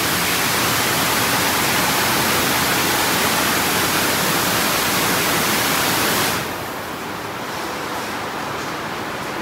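D&S IQ Express ST automatic car wash running a stage, a loud steady rush of spray or air hitting the car. It cuts down sharply about six seconds in, leaving a quieter rush.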